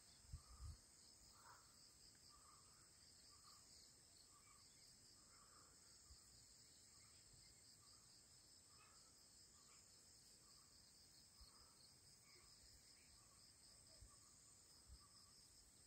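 Near silence with a faint, steady high-pitched chorus of crickets, and a softer, lower chirp repeating every half second to a second. A couple of soft bumps come right at the start.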